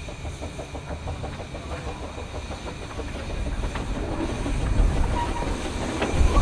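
2 ft gauge 0-4-2T steam locomotive hauling a coach and drawing closer. A rapid, even beat at first gives way to a low rumble from the wheels and track that grows louder, with a few sharp clicks as it nears.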